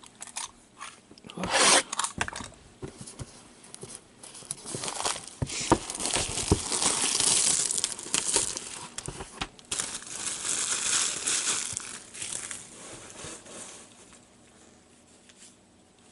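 Trading-card pack wrappers being torn open and crinkled while cards are handled. There is a sharp rip about two seconds in, then a long stretch of crinkling that dies away near the end.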